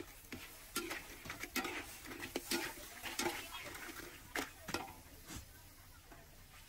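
Irregular clatter of hard objects being handled, a quick run of sharp clicks and knocks that thins out near the end.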